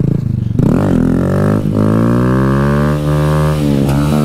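Honda Grom's small single-cylinder engine pulling away from idle. The revs climb sharply about half a second in, break briefly a little later, then run on fairly steadily under way.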